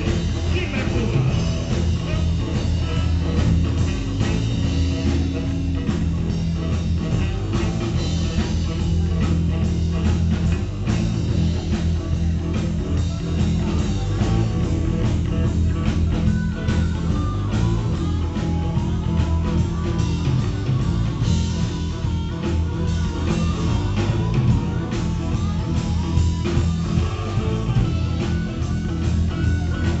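Live blues-rock band playing: electric guitars, bass and drums, with saxophone and harmonica and a voice singing.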